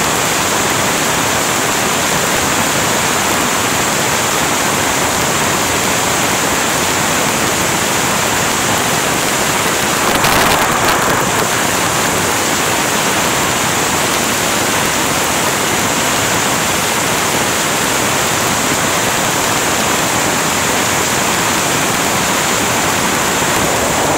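Steady heavy rain pouring down, with one brief louder swell about ten seconds in.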